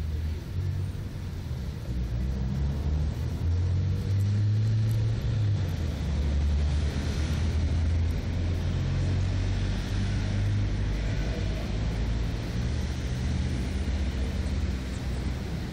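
Low, steady rumble of a motor vehicle engine running, loudest through the middle of the stretch.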